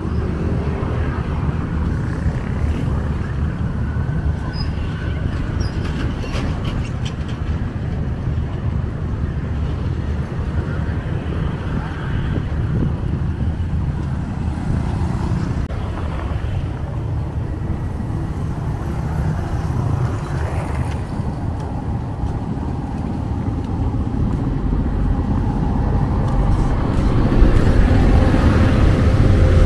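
Street traffic ambience: motor vehicles running with a steady low rumble, growing louder over the last few seconds as traffic comes closer.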